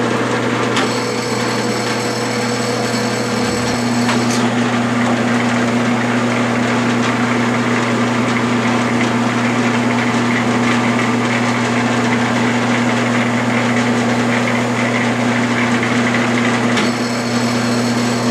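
Metal lathe running at low speed in back gear, a steady motor hum and gear whine, while a 7/16-20 threading die in a tailstock die holder cuts thread on a steel rod. The tone of the running shifts about four seconds in.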